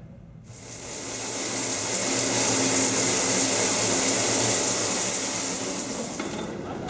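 A shower running: water spraying from the shower head onto the cubicle wall and floor, a steady hiss that comes in about half a second in and fades away near the end.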